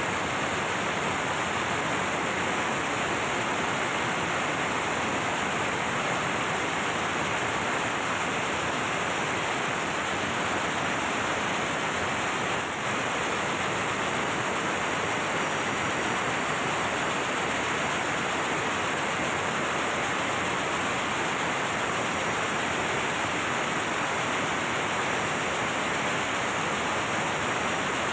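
MAN B&W auxiliary diesel generator running steadily under load, heard close up as a loud, even wash of machinery noise with no separate firing beats.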